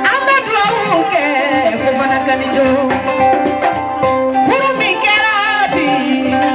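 A woman sings live through a microphone and PA over instrumental accompaniment, in long ornamented phrases with vibrato: one phrase opens with a rising glide at the start, and another rises in about four and a half seconds in.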